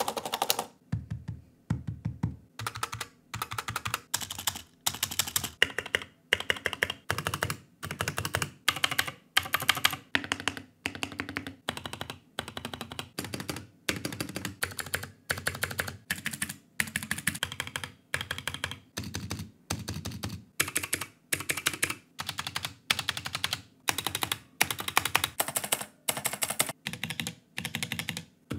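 Spacebars on a succession of different computer keyboards, from a cheap Barbie keyboard to mechanical boards such as a Ducky One 2 Mini with Cherry MX Silver switches, pressed repeatedly by a finger. Each board gives quick clacks in short runs of presses, with brief pauses between the runs.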